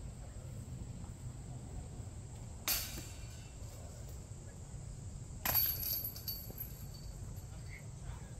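Two sharp knocks about three seconds apart. The second rings on briefly with a high metallic tone.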